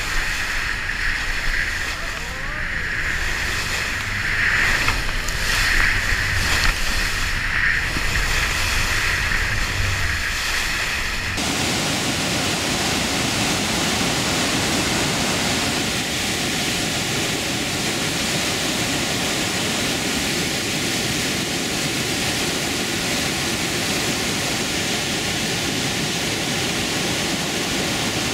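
A motorboat running through churning river rapids, with engine hum and rushing water. About eleven seconds in, this cuts abruptly to the steady, even rush of Iguazu Falls' cascades pouring over the cliffs.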